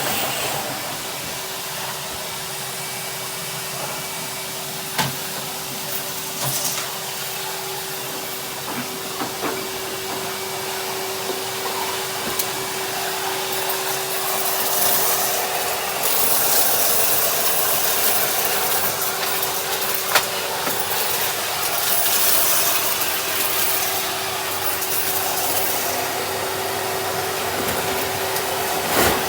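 Henry cylinder vacuum cleaner running steadily, a constant motor hum under the rush of air, with a few sharp clicks as lentils are sucked up the hose. The air rush grows louder and hissier about halfway through.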